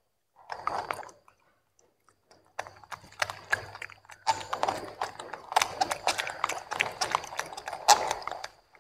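Baby macaques chewing broccoli and carrot, making irregular wet crunching and clicking. A short bout comes about half a second in, then near-continuous chewing from about three seconds in until near the end.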